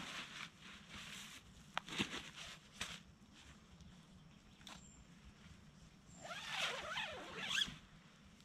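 Camping gear being handled inside a small dome tent: a few light knocks, then about two seconds of squeaky rustling of nylon fabric near the end.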